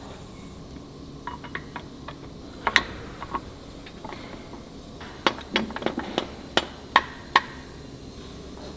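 Steel-on-steel clanks and taps as heavy steel parts of an excavator tiltrotator are knocked together during assembly, with a steel bar worked through the frame's pin bores. A few light taps, then two loud clanks a little under three seconds in, then a quick run of about a dozen sharp clanks in the second half.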